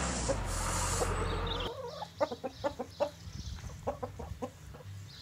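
A steady rushing noise with a low hum cuts off suddenly about a second and a half in, and then a flock of hens clucks, many short clucks one after another.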